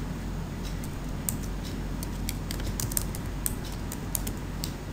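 Typing on a computer keyboard: irregular, sharp key clicks over a steady low hum.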